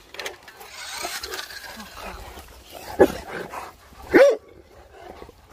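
Dogue de Bordeaux barking: two barks, about three and four seconds in.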